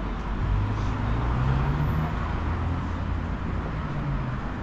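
Street traffic with a motor vehicle's engine running close by, its pitch rising a little in the first two seconds and dying away near the end.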